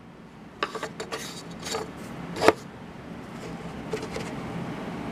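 Light knocks and clicks of wooden pieces being handled and set down on a hardboard table, the loudest about two and a half seconds in, over a steady low background noise that slowly grows louder.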